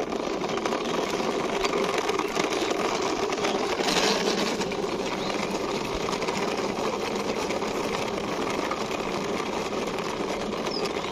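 Plastic toy car pushed by hand along a rough wall top, its plastic wheels rolling and rattling in a steady, rapid clatter.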